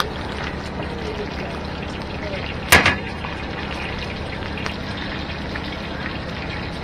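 Eggs sizzling steadily in a shallow pool of hot oil in a wide flat pan. Nearly three seconds in, a single sharp metal clank of a utensil against the pan.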